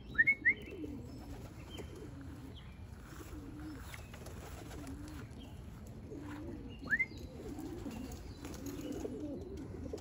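Racing pigeons cooing in and around the loft, a steady low warbling coo that runs on throughout. A few short rising chirps cut in, two just after the start and one about seven seconds in.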